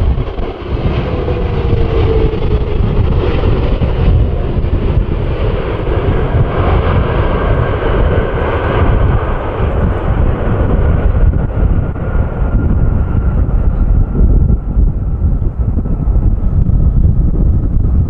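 Boeing 777-300ER's GE90 jet engines running as the airliner lands and rolls out on the runway. A steady engine whine slowly falls in pitch, under heavy wind buffeting the microphone.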